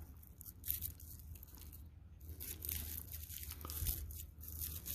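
Faint crackling and tearing of a Sempervivum heuffelii clump being ripped apart by hand, the fleshy crown breaking and the roots and soil crumbling, in several small bursts.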